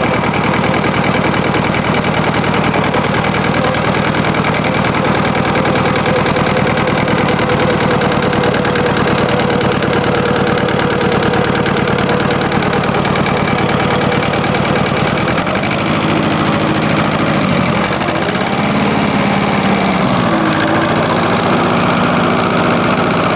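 Small tractor's engine running steadily under the driver as it drives. In the last third the engine note rises and falls three times as the throttle changes.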